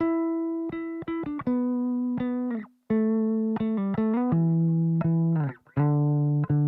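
Background music: a melody of short plucked notes changing pitch every fraction of a second, with brief gaps between phrases.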